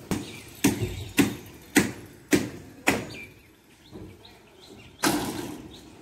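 Hammering: six sharp blows about half a second apart, then one more about five seconds in.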